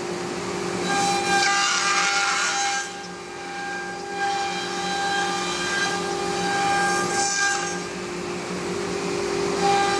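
Thermwood 3-axis CNC router's spindle running with a steady whine as its router bit cuts grooves in a wood sheet. The cutting hiss swells louder about a second in, and again around seven seconds and at the very end.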